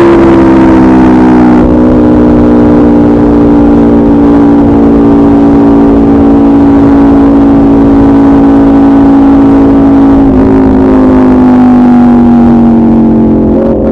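Aprilia RSV4 RF's V4 engine through a de-catted SC Project CRT exhaust, running loud at high, nearly steady revs. Its pitch sinks slowly, with small dips about two seconds in and about ten seconds in.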